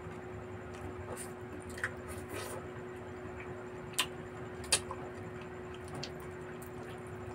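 Mouth sounds of a man eating barbecue and rice with his hands, close to the microphone: soft chewing and lip smacks, with a few sharp clicks about 2, 4 and 4.7 seconds in, over a steady low hum.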